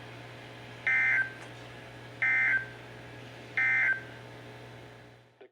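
Three short bursts of Emergency Alert System SAME data tones, the end-of-message code that closes a weather radio alert, each a brief two-tone digital burst repeated about a second and a half apart over a low steady hum. The audio then cuts off.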